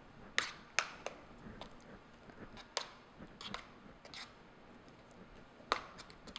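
Metal offset spatula scraping and tapping against a metal loaf pan while smoothing thick cake batter: a scatter of short clicks and scrapes, a few sharper ones near the start and one shortly before the end.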